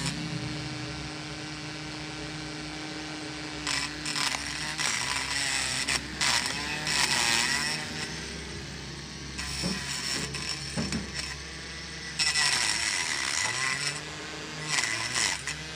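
Small Tamiya DC hobby motor spinning a razor-blade cutter, whining. Its pitch sags and recovers again and again as the blade meets load, with several short scratchy bursts.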